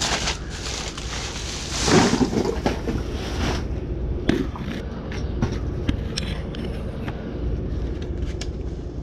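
Rustling and scraping as junk is handled and rummaged through, loudest about two seconds in, followed by scattered light clicks and knocks of small items being moved, over a steady low rumble.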